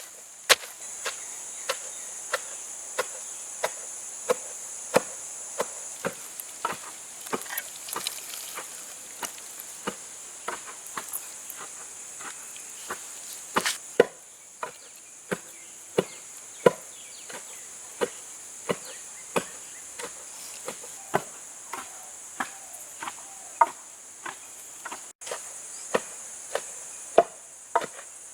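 Knife chopping on a wooden cutting board in an uneven run of strokes, about one to two a second, some much harder than others. Behind it runs the steady high drone of insects.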